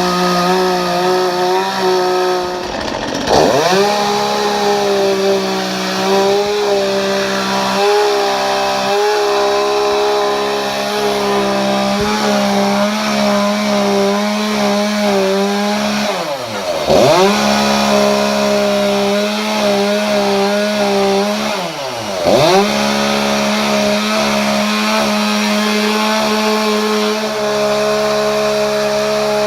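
Chainsaw running at high speed while carving into a bougainvillea trunk, with a steady high-pitched note. Three times its pitch drops sharply and sweeps straight back up.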